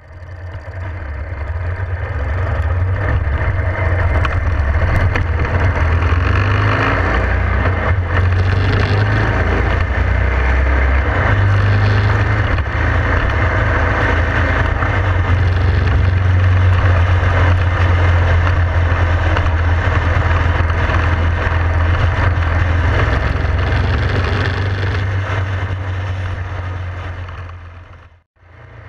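A motorcycle engine running as the bike pulls away and rides along the road, a steady low rumble under heavy wind and road noise on the handlebar-mounted camera. The sound builds over the first couple of seconds and drops out abruptly for a moment near the end.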